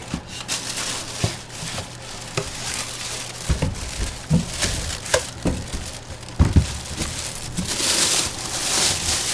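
Plastic packaging crinkling and rustling, with scattered knocks and taps, as a boxed full-size collectible football helmet is unpacked; the rustling is heaviest near the end.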